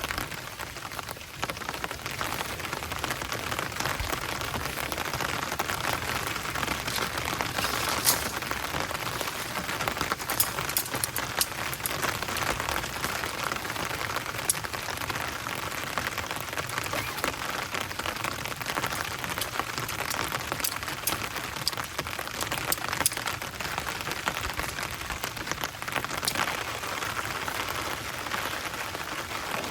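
Heavy rain falling steadily, with scattered sharp taps of individual drops striking a surface close by.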